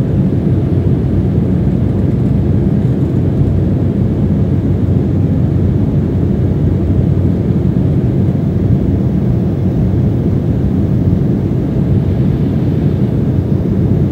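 Jet airliner cabin noise in flight: a steady low drone of engines and rushing air, heard from inside the cabin.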